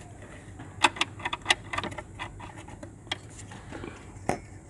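Light, sharp clicks and taps from hands handling parts in the engine bay. There is a quick run of them in the first two seconds, then a few single ones, the sharpest near the end.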